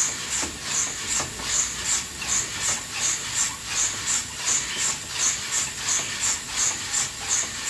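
Coffee beans tumbling in an old coffee roaster over a wood-fired stove, giving a regular swish about two and a half times a second over a steady hiss. The roaster is turning while the beans roast.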